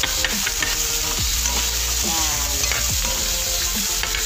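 Carrots and chayote sizzling in hot oil in a black wok, stirred with a spatula that scrapes against the pan now and then.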